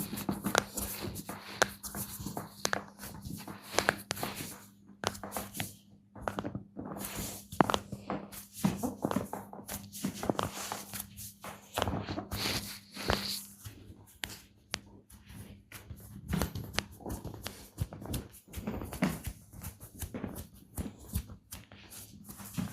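Hands massaging a person's skin: irregular rubbing and kneading with frequent sharp slaps and cracking clicks, over a steady low hum.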